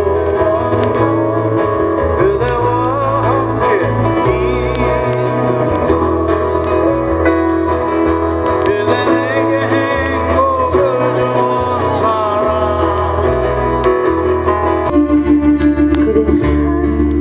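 Live folk song: a man singing to his own acoustic guitar over a steady bass line. About 15 seconds in, it cuts abruptly to another song, a woman singing with acoustic guitar.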